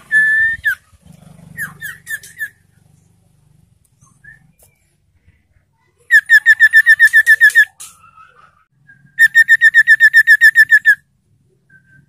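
Caged iora (sirtu) calling: a short whistled note and a few quick chips, then two fast trills of about nine clipped, repeated notes a second, each lasting about a second and a half.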